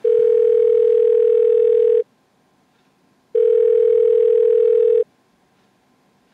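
Ringback tone of an outgoing iPhone Wi-Fi call, captured straight from the phone's audio: two steady rings of about two seconds each, a little over a second apart, the sign that the called phone is ringing and the call has not yet been answered.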